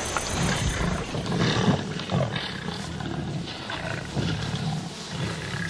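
Lion making low, rough rumbling sounds in a string of short pulses.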